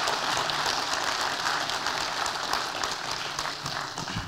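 Audience applauding, many hands clapping at once in a steady patter.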